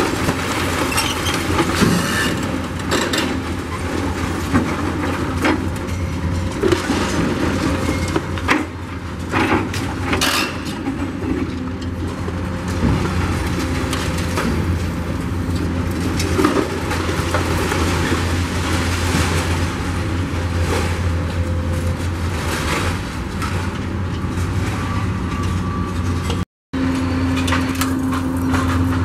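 Hydraulic excavator's diesel engine running steadily while its demolition grapple breaks up a brick and concrete building, with repeated crashes and clatter of concrete and debris falling. The sound drops out for a moment near the end.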